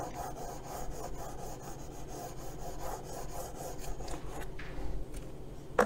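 Charcoal stick scratching across sketchbook paper in quick back-and-forth shading strokes.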